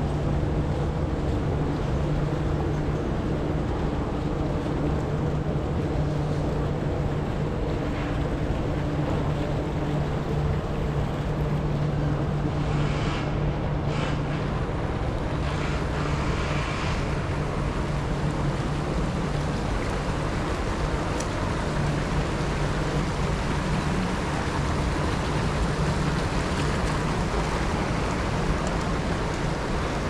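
A steady low mechanical hum, like an engine's, over a constant rushing noise; the hum fades out about two-thirds of the way through.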